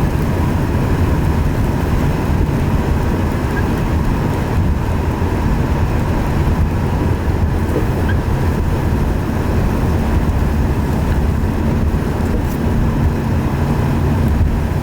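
Steady road and engine rumble inside a moving vehicle's cabin.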